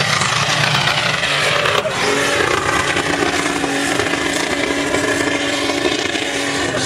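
Nissan Patrol's engine running hard under load as the SUV drives across a sand dune face, steady and loud, with a hiss of sand thrown up by the tyres.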